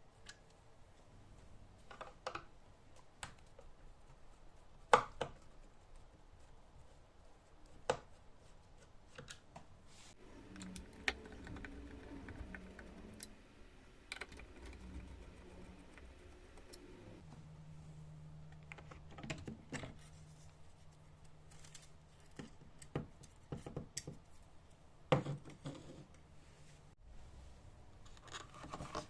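Scattered small clicks, taps and knocks of hands and small tools handling parts during an electronics repair, with a sharper knock about five seconds in and another about twenty-five seconds in. A low steady hum runs through the middle of the stretch.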